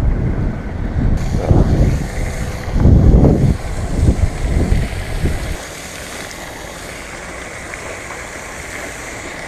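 Wind buffeting the microphone in loud low gusts for about the first five seconds, then settling to a steadier, softer rush.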